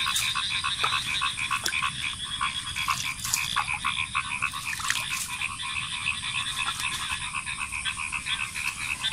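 A chorus of frogs calling steadily from the flooded field, a dense run of rapid, repeating croaks, with a few sharp clicks mixed in.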